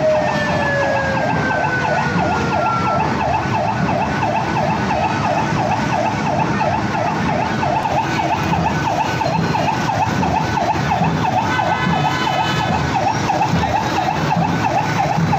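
A siren warbling rapidly up and down, about three times a second, without a break, over steady crowd noise. Near the start a separate tone glides slowly downward.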